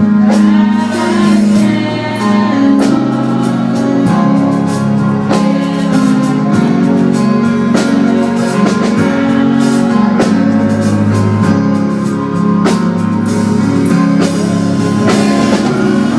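Gospel song with singing over instruments and drums, keeping a steady beat.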